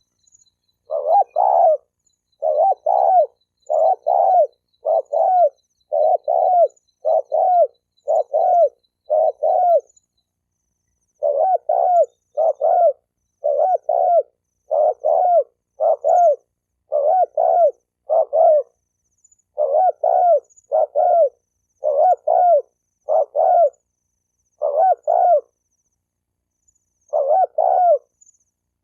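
Spotted dove cooing: a steady run of low coo notes, mostly in quick pairs about a second apart, broken by a few short pauses near the middle and toward the end.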